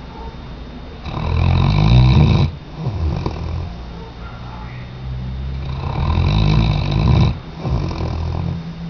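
A Weimaraner dog snoring in its sleep: two loud, buzzing snores, one about a second in and one near six seconds, each under two seconds long, with softer breaths between.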